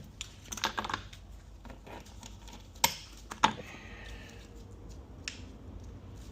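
Light clicks and clinks of Ford 6F35 transmission parts being handled on a workbench during a teardown, with two sharper metal clacks about three seconds in.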